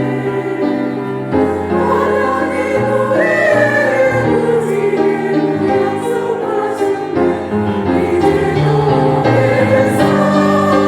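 Church choir singing a slow worship song in several parts, with sustained, legato phrases.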